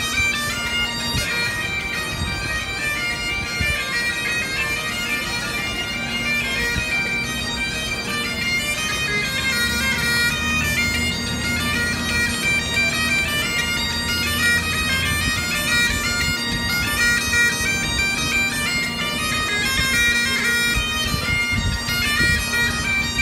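Bagpipe music: a steady drone under a chanter melody of stepping notes.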